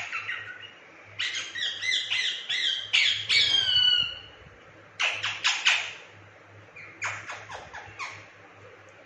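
Indian ringneck parrot squawking in short harsh calls: a fast run of calls in the first few seconds, some sliding down in pitch, then a few sharp screeches about five seconds in and shorter calls near the end.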